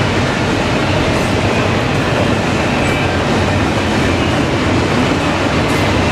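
Norfolk Southern freight train rolling past at close range: a steady, loud rumble of steel wheels on rail, with a few faint clicks.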